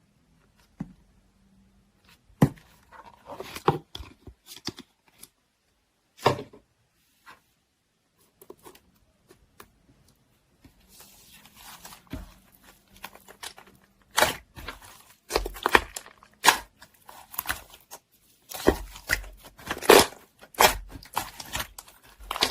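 Irregular handling sounds: sharp taps and clicks mixed with rustling and crinkling, getting busier in the last few seconds.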